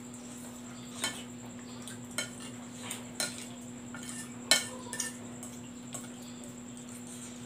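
Metal fork and spoon clinking and scraping against a glass plate while eating noodles: a few scattered light clicks, the loudest about four and a half seconds in, over a steady low hum.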